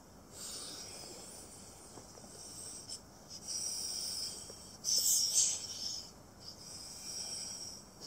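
Puffs of breath blown by mouth into the valve of a Klymit Pillow X Large inflatable camping pillow: about five airy blows, the loudest about five seconds in.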